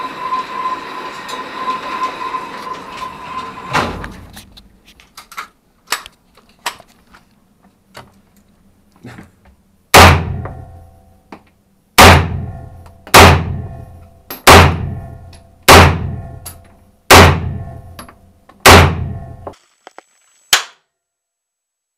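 Seven loud gunshots from a compact semi-automatic carbine, fired one at a time every one to two seconds from about ten seconds in, each ringing briefly off the walls of the indoor range; a weaker shot follows near the end. Before them, a steady hiss with a thin tone stops with a sharp click, then come a few light clicks.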